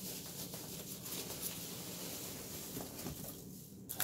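Loose packing peanuts rustling and shifting as hands dig through them in a cardboard box: a dense scatter of small scratchy clicks that thins out briefly near the end.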